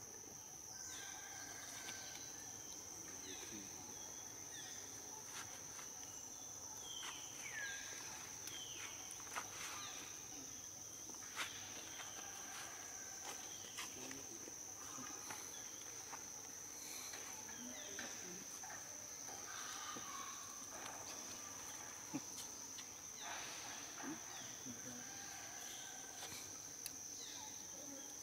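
Steady high-pitched drone of insects, crickets or cicadas. Over it come scattered short chirps and a few brief falling calls.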